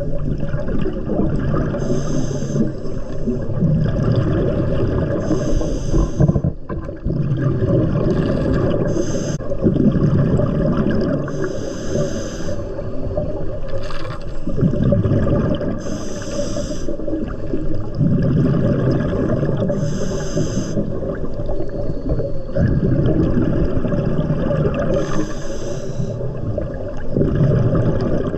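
Scuba diver breathing through a regulator underwater: a hiss with each inhalation about every three to four seconds, alternating with the low rumble and gurgle of exhaled bubbles.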